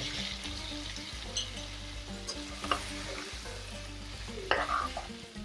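Raw chicken pieces sizzling in hot oil with fried onions and ginger-garlic in a pan while a spoon stirs them, knocking against the pan a couple of times.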